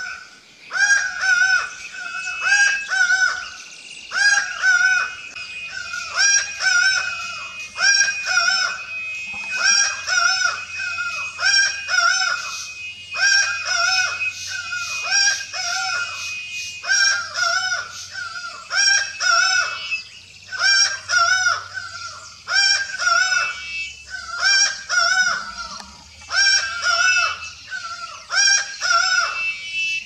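Laughing falcon (acauã) calling over and over, a loud rhythmic series of pitched calls about once a second.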